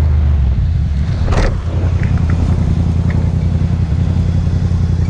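Motorcycle engine running at a steady low pitch while the bike rides in traffic, heard from a camera mounted on the bike. A brief rushing noise comes about a second and a half in.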